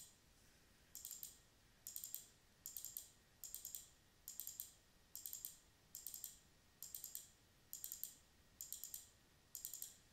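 Faint computer-mouse double-clicks, eleven in a row at an even pace of a little more than one a second, each one adding a pipe bend in a calculation program.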